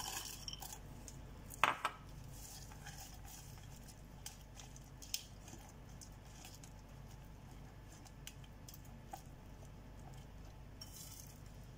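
Spatula scraping toasted walnuts out of a small glass dish into a glass mixing bowl, with one sharp clink of glass and utensil about two seconds in, then quiet stirring and scraping of thick brownie batter against the glass bowl with a few faint taps.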